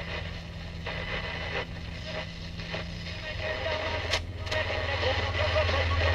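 GE P975F transistor radio on AM being tuned across the band: static hiss with sharp crackles over a steady low hum. A broadcast voice comes in and grows louder near the end.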